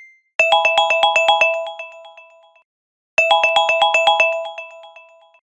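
Countdown timer's end alarm: a marimba-like ringtone melody, a quick run of bright struck notes that fades away, played twice with a short gap between.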